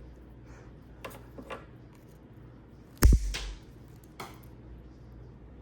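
Cutters snipping through a piece of the headlight wiring harness: a few light clicks of handling, then one loud, sharp snap about three seconds in.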